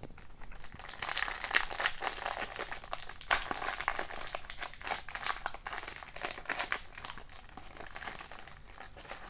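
Foil wrapper of a 2020-21 O-Pee-Chee Platinum hockey card pack crinkling and crackling in the hands as it is torn open. The crackle is densest in the first few seconds and eases off toward the end.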